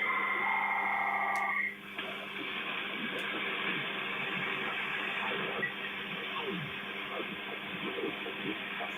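Shortwave receiver audio on the 80 m amateur band: a multi-tone data signal, several steady warbling tones at once, cuts off about two seconds in. It leaves the hiss of band noise, with faint wavering signals drifting through it.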